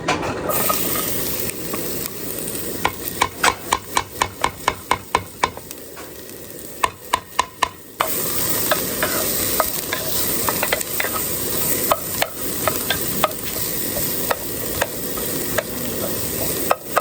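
Food cooking in a pot, stirred with a spoon that knocks against the pot: a run of quick knocks about four a second, then more scattered ones, over a steady sizzle. The background sound changes abruptly twice, a little after the start and about halfway through.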